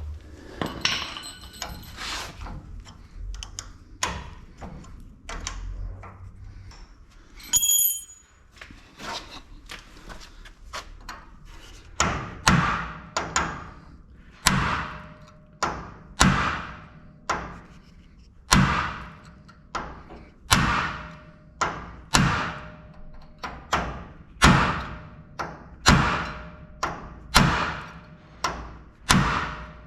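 Hammer blows on the steel parts of an old GMC truck's rear leaf-spring suspension. Scattered knocks and clanks come first, with one ringing metal clank about eight seconds in. From about twelve seconds in, steady repeated strikes follow, roughly one to two a second, each ringing briefly.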